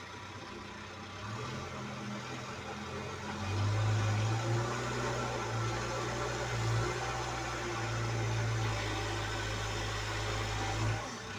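Backhoe loader diesel engine running at a steady speed, a low hum that gets louder about three and a half seconds in.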